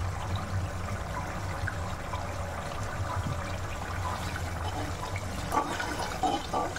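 Onion, curd and spice masala sizzling and bubbling in a steel kadai over a gas flame, stirred with a perforated steel spoon.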